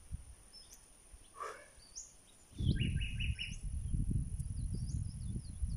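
Wild birds chirping and calling outdoors: short high chirps throughout, one falling call about a second and a half in, and a quick run of four notes about three seconds in. From about two and a half seconds in, an uneven low rumble on the microphone.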